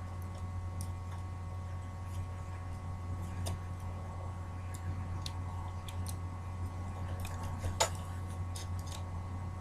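Faint, scattered clicks and taps of small laptop parts being handled during disassembly, with one sharper click near the end, over a steady low hum.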